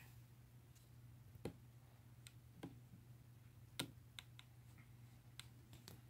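Faint, scattered light clicks and taps, about a dozen at uneven intervals, over a low steady hum: the small sounds of 15mm wargame miniatures on their bases being handled and set down on the table.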